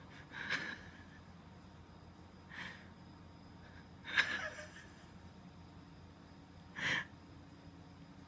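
Four short breathy puffs, like snorts or sharp exhales, spaced a couple of seconds apart; the third, about four seconds in, is the loudest.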